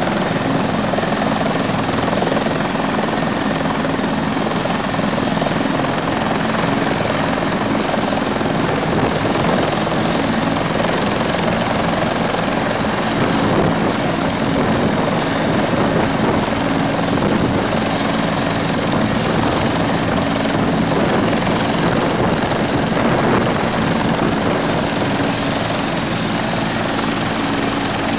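Police helicopter running on the ground with its main rotor turning, a steady engine and rotor sound that holds level throughout.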